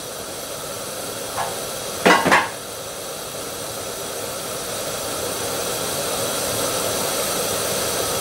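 Canister gas stove burner hissing steadily under an aluminium mess tin of water, slowly growing louder as the water heats. Two quick metal clinks about two seconds in.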